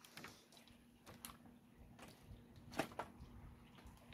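Near silence, with a few faint scattered ticks.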